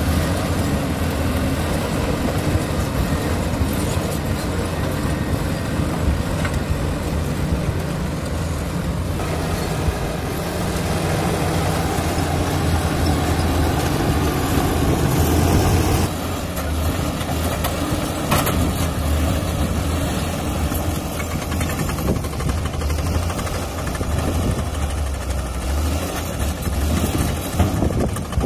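Komatsu D85 bulldozer's diesel engine running steadily under load, with a steady low engine note. The sound changes about nine seconds in and drops suddenly about sixteen seconds in, as the load on the engine changes.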